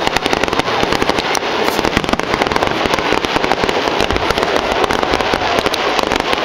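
Fireworks display: a dense, unbroken run of rapid sharp pops and cracks from low-level crackling effects.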